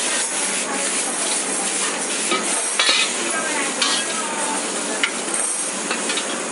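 Noodles sizzling in a hot wok as a steel ladle stirs and tosses them, a steady frying hiss with a few sharp clinks of the ladle against the wok.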